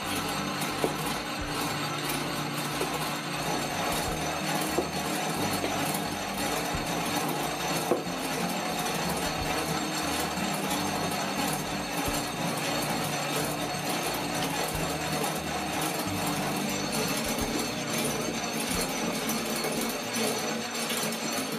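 Barnes #5 foot-powered velocipede lathe being treadled, its belt, flywheel and spindle running steadily, with a few sharp clicks along the way.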